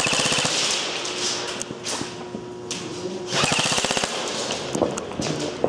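Airsoft guns firing rapid automatic bursts of sharp clicking shots. One short burst comes right at the start and a longer one about three and a half seconds in, with scattered single shots in between.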